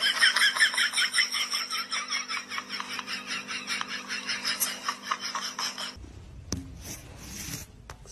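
Rapid, rhythmic rasping of a cat's paws scratching and pawing at a child-locked microwave door, about five strokes a second over a steady low hum, cutting off about six seconds in. A few faint clicks follow.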